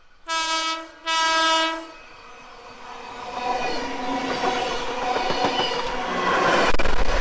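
A train's horn sounds two short blasts, then the train passes close by. Its running noise and wheel clatter build up to a heavy rumble, loudest near the end.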